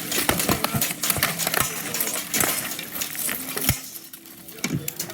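Steel armour and blunted steel weapons clanking, a rapid series of sharp metallic knocks and clinks, easing off briefly about four seconds in.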